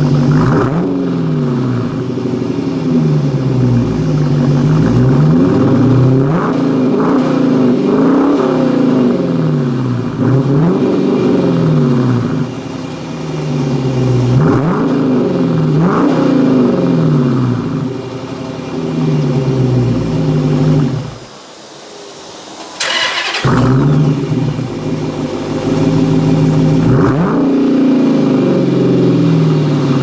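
2014 Dodge Challenger Shaker's 5.7-litre HEMI V8 with the resonators deleted, revved repeatedly through its exhaust in short blips that rise and fall back every couple of seconds. About two-thirds through, the sound drops away briefly and a short sharp noise follows before the revving resumes.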